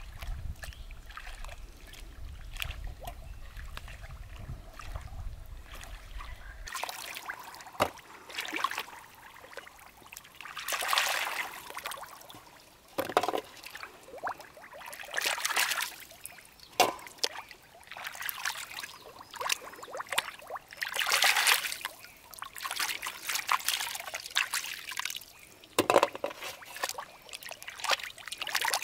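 Hands sloshing and scooping through shallow muddy water and silt, feeling for mussels and snails, in repeated splashy bursts a few seconds apart with a few sharp clicks. A low rumble during the first several seconds cuts off abruptly.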